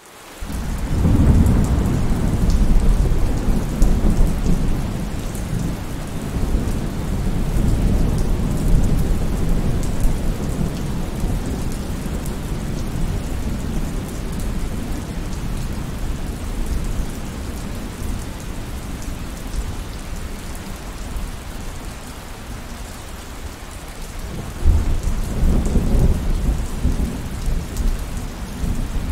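Steady heavy rain with rolling thunder. The sound fades in at the start, then a long low rumble builds and slowly dies away over the first ten seconds, and a second peal breaks in near the end.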